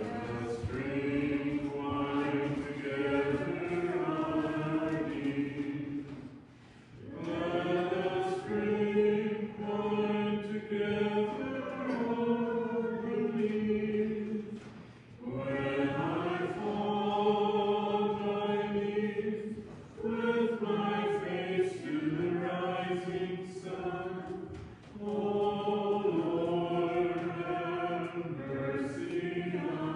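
Voices singing a slow hymn in long held phrases, with brief breaks between phrases.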